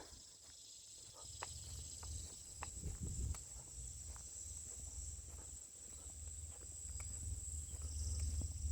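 Insects, crickets, singing in a steady high-pitched drone, over a low rumble with a few faint ticks.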